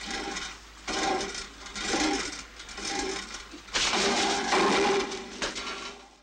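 Cartoon soundtrack for a fall: a dense, noisy effects track that swells in pulses about once a second, loudest for a stretch near the end, then cuts off abruptly.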